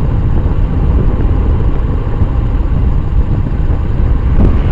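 Wind buffeting the microphone of a rear-facing bicycle tail-light camera on a fast downhill ride: a loud, steady low rush.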